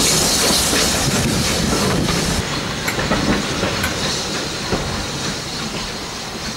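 Steam-hauled train of coaches pulling away behind BR Class 9F 2-10-0 locomotive 92203: a loud hiss of steam that drops away about two seconds in, then a steady rumble with a few sharp wheel clicks on the track as the coaches roll past, slowly fading as the train draws off.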